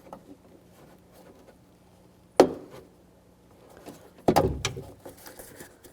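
Hands working parts inside a stripped truck door: a single sharp plastic click about two and a half seconds in, then a louder clattering knock of parts about two seconds later, typical of unclipping the lock actuator's electrical connector and moving the rods and latch.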